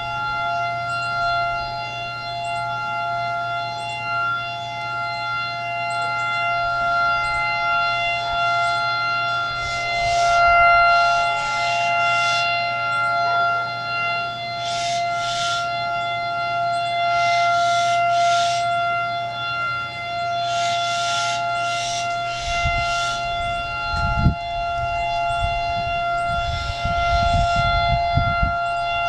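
Hawaii tsunami warning siren sounding one steady, unwavering tone during its monthly test, still going well past the 30 seconds it is meant to run. Rushing noises come and go over it, and low rumbling thumps, one sharp, are heard near the end.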